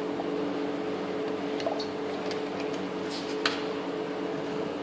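Steady mechanical hum of a running motor, with a few faint ticks in the second half and a slightly louder click about three and a half seconds in.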